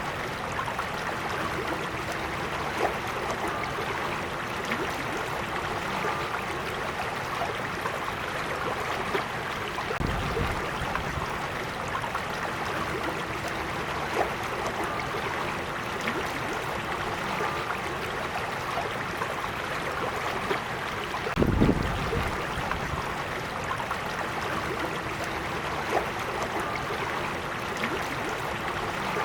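Small creek flowing steadily, an even babble of water running over stones, with two brief low rumbles, about ten seconds in and again near twenty-two seconds.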